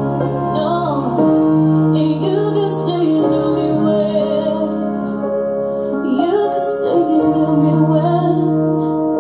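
Pop song with a woman singing over sustained keyboard chords, played through a hi-fi mini stereo system's speakers.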